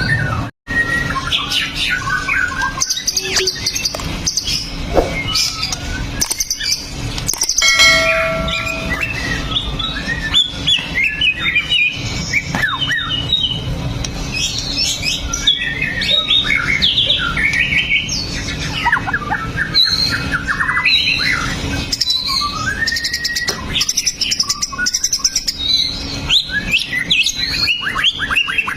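White-rumped shama singing a fast, varied run of whistles and chattering notes, with a brief dropout about half a second in, over a steady low hum.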